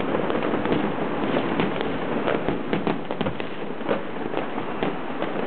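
Fireworks and firecrackers going off in many places at once: a dense, unbroken run of overlapping bangs and pops with no pause and no single blast standing out.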